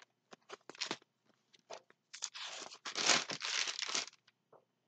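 Packaging of a diamond painting kit rustling and crinkling as it is handled: a few short crackles, then a denser stretch of crinkling starting about two seconds in and lasting about two seconds.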